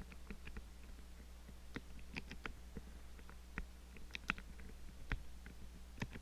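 Irregular small metallic clicks and ticks of lock picks working the levers inside an Ingersoll 10-lever padlock core, over a steady low hum.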